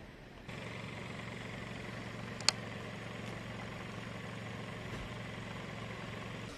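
Steady low engine hum, with a single sharp click about two and a half seconds in.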